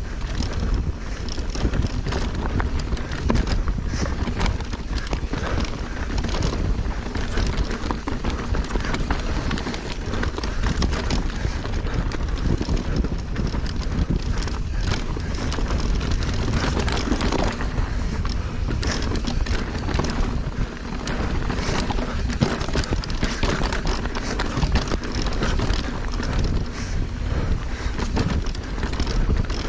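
Mountain bike descending a rocky dirt trail at speed: a dense, continuous clatter of tyres over rocks and the bike rattling, over steady wind buffeting the microphone.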